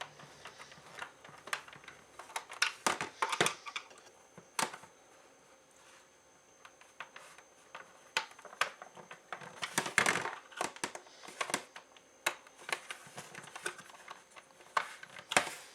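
Scattered clicks and knocks of hard plastic being handled as a Nerf Rival Apollo blaster is put back together. They come irregularly, some in quick clusters, with the busiest bursts about three seconds in and about ten seconds in.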